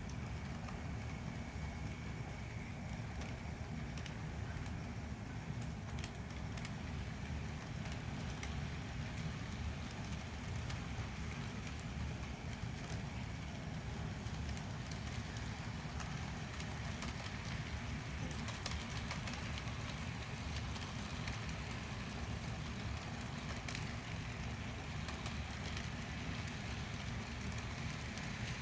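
HO scale Bachmann F9 locomotive pair running slowly on track, pulling a train of loaded flat cars: a steady low rumble of motor and wheels with scattered light clicks.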